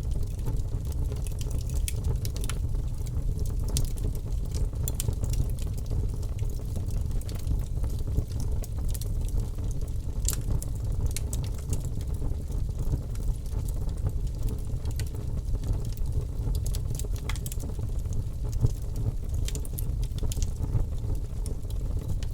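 Bonfire burning: a steady low rumble with frequent, irregular sharp crackles and pops from the burning wood.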